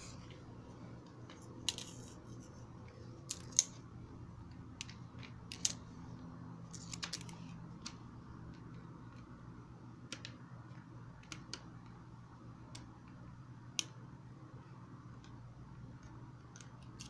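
Scattered light clicks and taps, a dozen or so at uneven intervals, over a faint steady low hum.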